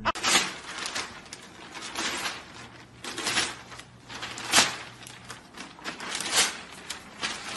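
Newspaper rustling and crinkling as a golden retriever bites and pulls at it, with several sharper swishes of paper.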